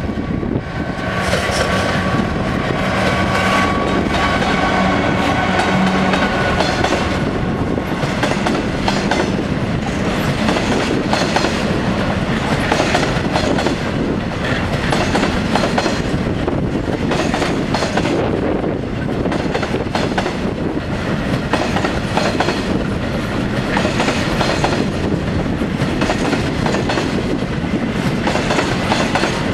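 Class 66 diesel locomotive passing close with its two-stroke V12 engine running and a steady whine over the first several seconds. Then a long rake of coal hopper wagons rolls by, the wheels making a steady rhythmic clickety-clack over the track and points.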